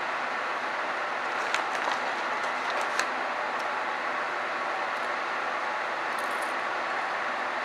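Steady, even hiss of background noise, with a few faint clicks between about one and a half and three seconds in.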